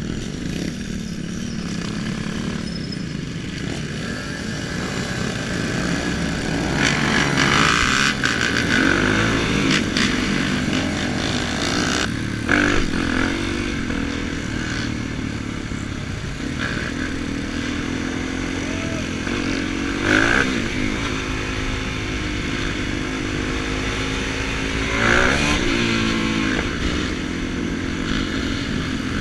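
Motorcycle engine heard from on board while riding, its pitch climbing several times as it is revved up through the gears, over steady riding noise.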